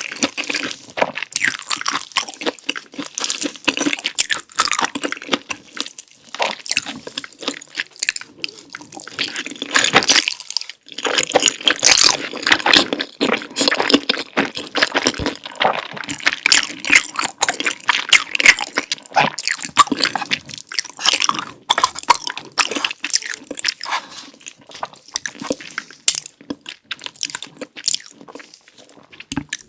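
Close-miked eating: chewing and biting on sausage and thick, creamy spicy noodles, with wet, sticky mouth sounds and crisp bites. The sounds come in dense, irregular clicks and crackles, with a short pause about ten seconds in.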